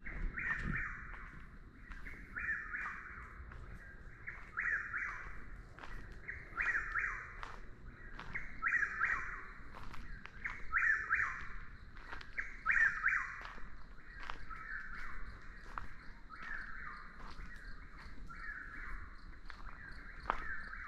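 Chuck-will's-widow singing its repeated 'chuck-will's-widow' phrase, each call about a second long, given over and over roughly every two seconds.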